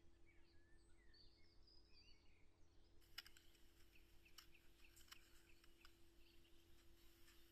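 Near silence: faint bird chirps in the first few seconds, then scattered small clicks, over a low steady hum.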